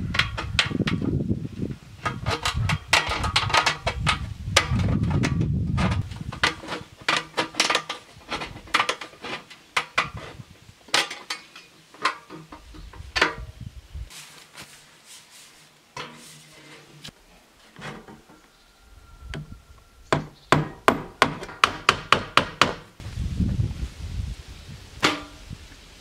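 Sharp knocks and taps of hand-tool building work, coming in uneven runs. A duller low rumble of handling sits under the first few seconds and comes back near the end, and the knocking thins out for a few seconds around the middle.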